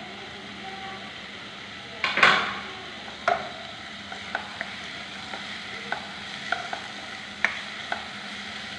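Sliced onions, curry leaves and freshly added tomato sizzling in oil in a non-stick pan while a black spatula stirs them. Short clicks of the spatula against the pan come every half second or so, with a louder burst about two seconds in.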